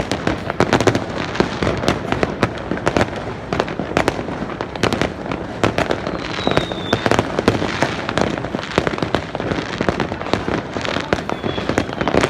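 Many fireworks going off together in a continuous, dense crackle of sharp pops and bangs. A faint high whistle sounds twice, about halfway through and near the end.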